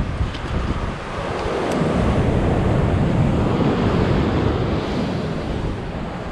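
Surf washing against the rocks below, mixed with wind buffeting the microphone; the rush swells for a couple of seconds in the middle. A couple of faint clicks in the first two seconds come with the rope being clipped into a quickdraw's carabiner.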